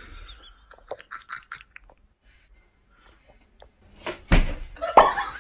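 Faint, scattered short rustling sounds, then two dull thumps about a second and a half from the end, the second about half a second after the first.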